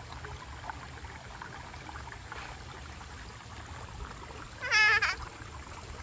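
Shallow creek trickling softly, and near the end a toddler's short, high, wavering squeal.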